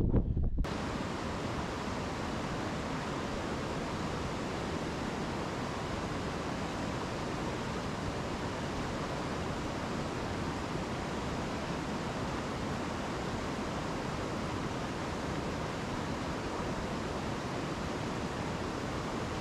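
Fast-flowing stream rushing over rocks and small rapids: a steady, even rush of water. Just before it starts, under a second in, a gusty wind rumble on the microphone cuts off abruptly.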